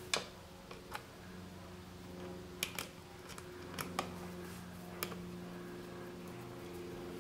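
Screwdriver and small metal parts clicking and tapping as a fitting is worked on a motorcycle frame: about seven sharp clicks spread irregularly, the loudest just after the start, over a steady low hum.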